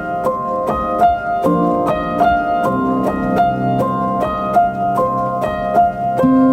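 Background music: a piano melody of quick, evenly spaced notes over sustained low notes.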